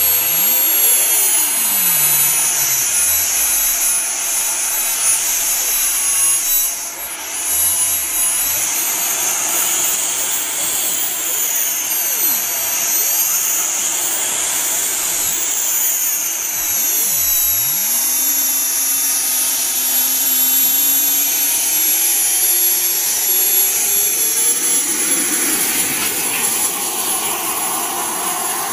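Twin miniature turbine engines of a radio-controlled F-14 Tomcat model jet running with a loud, steady high whine, the pitch sliding down and back up a few times.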